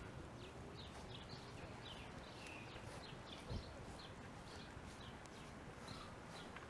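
Footsteps of a person and a dog walking, with short high-pitched sounds repeating about twice a second and a single low thump about three and a half seconds in.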